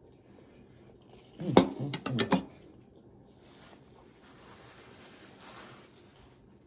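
A few clattering knocks of a glass plate and chopsticks being set down about a second and a half in. Then a soft, steady rustle of a paper napkin wiping hands for a few seconds.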